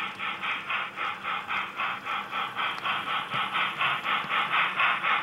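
Steam-locomotive chuffing, a steady rhythm of about six exhaust beats a second, running with the HO-scale Southern Pacific brass steam locomotive as it passes, with a faint steady hum underneath.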